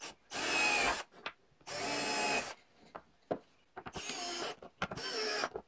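Cordless drill boring pilot holes into plywood in four short bursts, each under a second, with a few light clicks between them.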